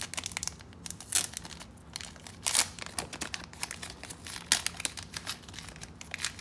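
Plastic packet of brass barrel swivels with a card header being handled and pulled open by hand: irregular crinkling and crackling of the plastic, with a few sharper, louder crackles.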